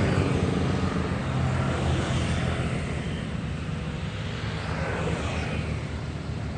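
Kubota U50 excavator's diesel engine running steadily.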